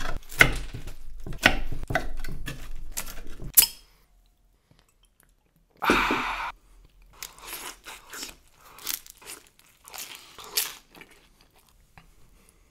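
A crusty pineapple pizza being cut into, with several short crackling strokes through the crust. About six seconds in comes a single loud crunchy bite, followed by close-miked chewing.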